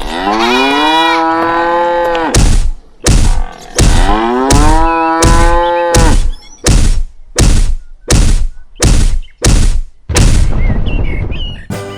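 A cow mooing twice, each long moo rising in pitch and then held for about two seconds. Between and after the moos comes a run of short, loud knocks, a little under two a second.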